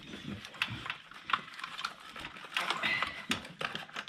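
Irregular light clicks and knocks of hand tools and engine parts being handled, with a short scraping rustle about two and a half seconds in.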